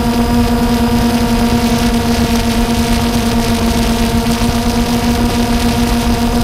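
Quadcopter drone's motors and propellers whining at one steady pitch, heard from the drone itself, with wind rumble on the microphone underneath.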